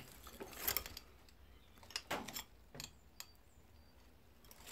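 Faint, scattered clicks and light knocks, a few of them close together about two seconds in, with a couple of faint high chirps later.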